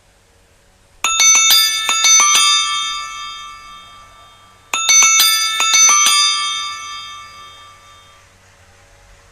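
Tecno smartphone stock ringtone: a short chime of several quick, bright bell-like notes that rings on and fades out. It starts about a second in and plays a second time near the middle.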